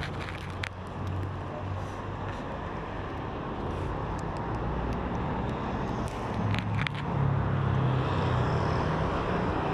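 Road traffic: a steady hum of car and motorcycle engines passing, swelling about two-thirds of the way through, with a few light clicks.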